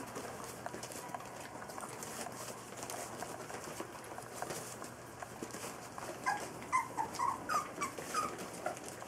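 Three-week-old golden retriever puppies whimpering: a quick run of short, high squeaks in the last few seconds, over faint pattering and rustling of paws on newspaper.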